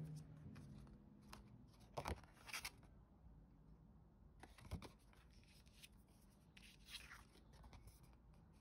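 Faint rustling and crinkling of paper cards and a sticker sheet being handled and turned over, in a few short bursts about two seconds in, around five seconds, and around seven seconds.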